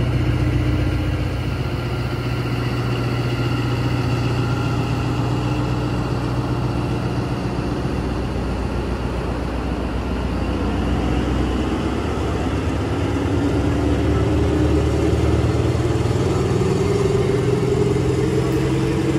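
ZCU-20 diesel-electric locomotive running under load as it pulls a passenger train away, its engine droning steadily, with a rising whine in the second half as the train gathers speed.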